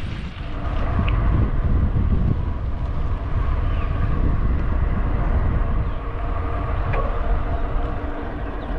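Steady low rumble of wind on the microphone and tyre noise while riding a bicycle on the road, with a faint hum running through it.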